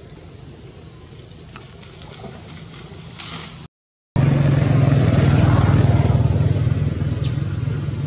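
A motor vehicle engine running steadily with a low hum, faint at first, then much louder after a brief dropout about four seconds in.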